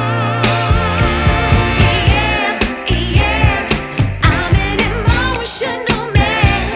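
Background music with a steady beat and bass line, with a singing voice carrying a wavering melody.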